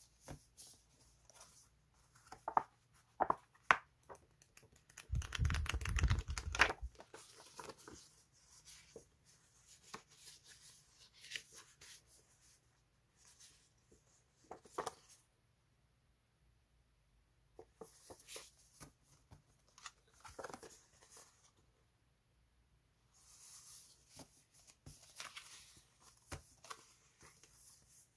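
Stiff paper label sticker sheets being handled: sheets shuffled, slid against each other and against a paper sleeve, and fanned out, with light rustles and soft taps. A longer, fuller rustle about five seconds in is the loudest, with a couple of short pauses later.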